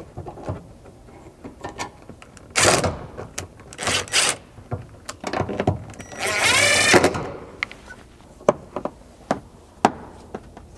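Cordless driver running for about a second with a slightly rising whine, driving the grab-handle screw into the car's roof rail, after a few loud handling knocks. Near the end come a run of short clicks and taps as the rubber door seal is pressed back into place.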